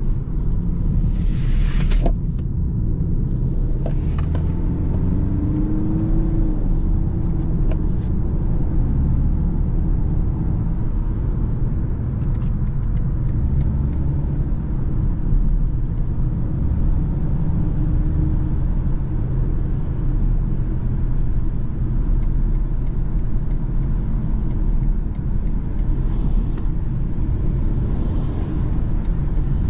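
BMW car heard from inside the cabin at speed: steady low engine and road rumble, with the engine note rising for a couple of seconds about four seconds in as the car accelerates. After that it settles into an even cruising drone.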